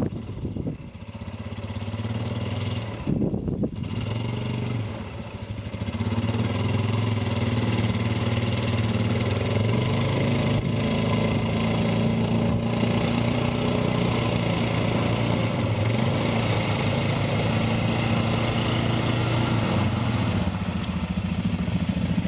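ATV (quad bike) engine running as the quads work through a deep river ford and one is brought out of the water. The engine gets louder about six seconds in and then holds a steady, even pitch.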